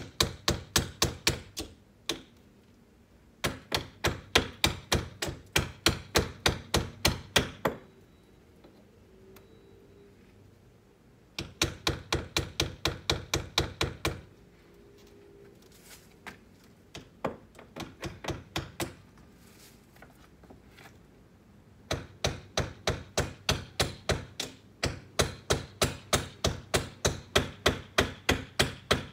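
Hammer tapping nails into a window frame in quick runs of light strikes, about five a second, with short pauses between the runs.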